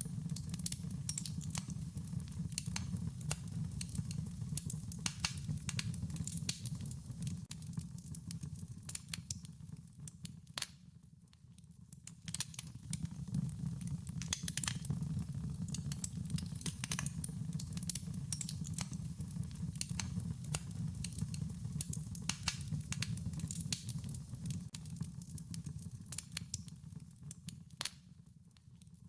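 Wood fire crackling: irregular sharp pops and snaps over a steady low rumble of burning. The crackling thins out briefly about eleven seconds in and again near the end.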